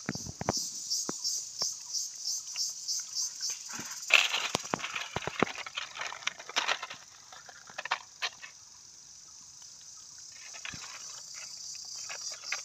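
A stick scraping, knocking and cracking against a fire-charred bamboo tube as it is worked open, in sharp clusters of clicks, loudest about four seconds in. Behind it, a high insect trill pulses about four times a second at first, then holds steady.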